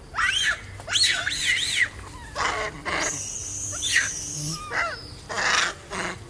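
Baby macaque crying: a string of high, wavering screams that rise and fall, several in quick succession. A steady high buzz sounds for about a second and a half in the middle.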